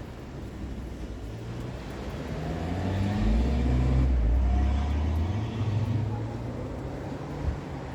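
A motor vehicle passing, its engine sound rising in pitch and swelling to a peak about four seconds in, then fading.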